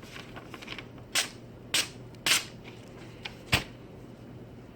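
Freshly sharpened sword blade slicing through paper: three short crisp cuts about half a second apart, then a sharper click a second later.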